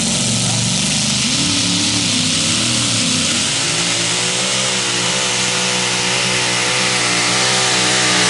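Blown engine of a two-wheel-drive Chevrolet pulling truck revving in a few short swells, then held steady at high rpm with a slight waver as the truck starts its pull against the sled.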